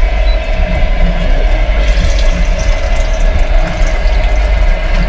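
Tap water running into a small stainless-steel washbasin and splashing over cupped hands, over the steady low rumble and rattle of a moving train. The splashing hiss grows stronger about two seconds in.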